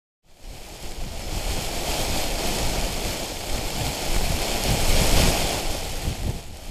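Wind gusting against the action camera's microphone: an uneven low rumble under a steady hiss. It starts suddenly just after the beginning.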